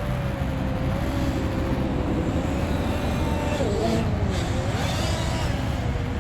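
Nazgul Evoque F5 FPV quadcopter's motors whining over a dull rush of wind and prop wash. The pitch wavers with throttle and dips and swoops sharply for about a second near the middle.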